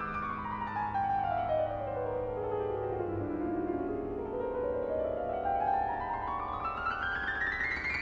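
Grand piano playing a fast run of notes that sweeps down in pitch for about three and a half seconds, then climbs straight back up.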